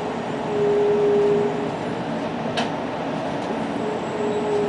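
Cabin running noise of a JR Kyushu N700 series 8000 Shinkansen rolling at low speed: a steady hum with a humming tone that swells twice, once near the start and again near the end. A single sharp click comes about two and a half seconds in.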